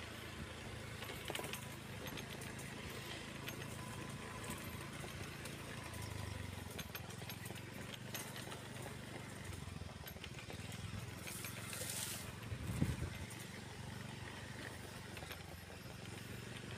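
Motorcycle engine running steadily while riding along a dirt track, with a short hiss about twelve seconds in and a low thump just after it.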